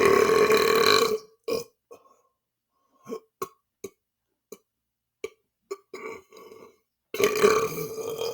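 A man belching deliberately and loudly: a long burp lasting about a second, a short one right after, a string of brief clicks, then another long burp near the end.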